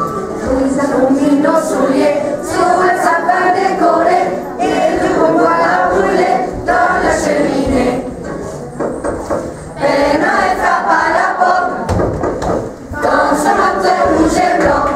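A group of schoolchildren singing a song together as a choir, with brief breaks between phrases.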